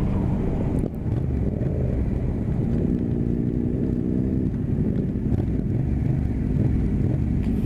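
Yamaha MT-07 parallel-twin motorcycle engines idling at low revs, their pitch lifting and dipping slightly now and then as the bikes creep forward.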